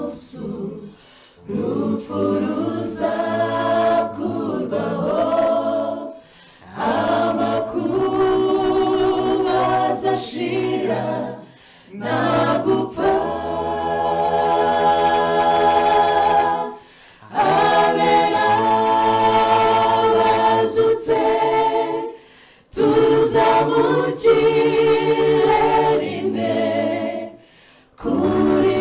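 Mixed choir of men's and women's voices singing a Kinyarwanda gospel song a cappella, in phrases about five seconds long with short breaks between them.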